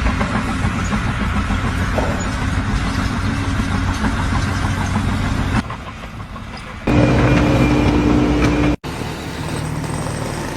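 Motor vehicle engine running steadily. The sound changes abruptly three times: a quieter stretch about five and a half seconds in, then a louder engine with a steady hum from about seven seconds, then a brief dropout near nine seconds.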